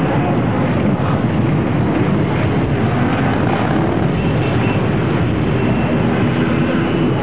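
Steady, loud din of many motorcycle engines running together in a mass ride.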